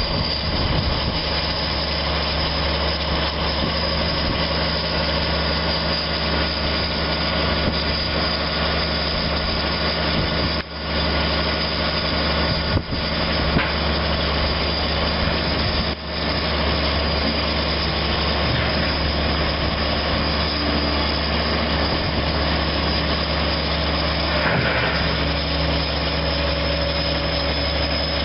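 Diesel tractor engine running steadily at a constant speed while it works the hydraulics of a towed scraper pan. The sound dips briefly a few times.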